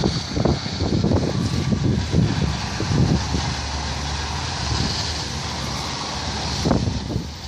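Wind buffeting the microphone in irregular low gusts over a steady hiss, with a car running close by on the glazed ice. The gusts ease for a couple of seconds past the middle, then one short gust comes near the end.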